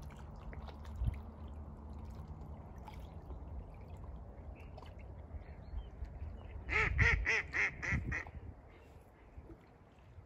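A duck quacking, a quick run of about six quacks lasting a second and a half, about seven seconds in. Underneath is a steady low rumble of wind and lapping water.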